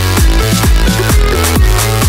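Electronic dance music: a loud, dense electro-trance track driven by a steady kick drum about two beats a second.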